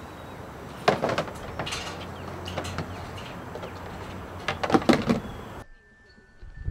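A wire fry basket and a plastic bus tub clattering as just-fried French fries are lifted from the oil and tipped into the tub, with sharp knocks about a second in and a run of rattling knocks near five seconds, over a steady hiss.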